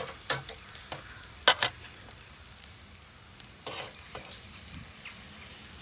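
Raw hanger steaks sizzling as they are laid on a hot charcoal grill grate over direct heat. A few sharp clicks of metal tongs on the grate come near the start, the loudest about a second and a half in.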